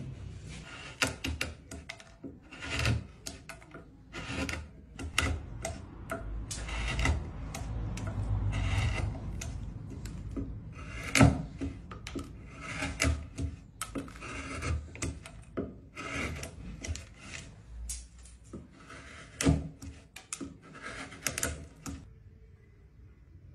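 Short-handled wood carving gouges and chisels pressed by hand into a wooden board, a run of irregular crisp clicks and crunches as the blades cut in and chips break free. The cutting stops shortly before the end.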